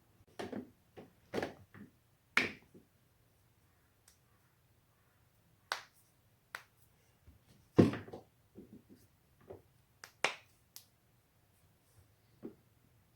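Body joints cracking: an uneven series of sharp pops and clicks, about a dozen, the loudest about eight seconds in.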